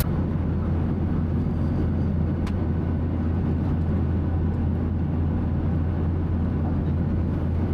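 Airliner cabin noise: a steady low drone of the jet engines and airflow, unchanging throughout.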